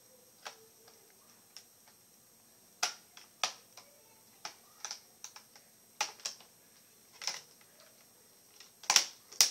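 Plastic screen bezel of an Asus G60VX laptop being pried off, its snap-in clips popping loose with irregular sharp clicks and snaps, the loudest pair about nine seconds in.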